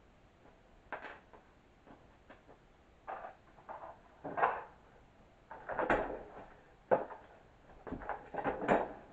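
Irregular knocks, scuffs and rustles of a person moving about on a plywood floor panel and handling a mesh office chair, with a few sharp clicks among them.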